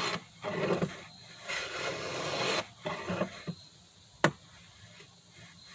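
Hand tool cutting wood: a few rasping strokes, the longest about a second, with a sharp click a little past the middle. The sound of the cut is what tells whether it is going with the grain.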